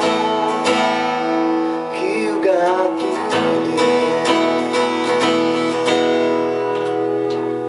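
Acoustic guitar being strummed in chords, the strokes settling into a sustained ringing chord in the second half.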